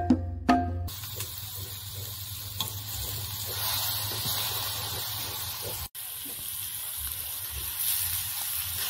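Boiled greens sizzling as they go into a hot wok of onions and tomatoes fried in coconut oil, a steady frying hiss. A short stretch of music plays at the start, and the sound cuts out for an instant about six seconds in.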